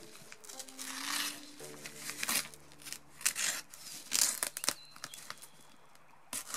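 Packing tape being cut and torn off a large cardboard parcel, with the plastic bubble wrap underneath crinkling: a series of short ripping rustles.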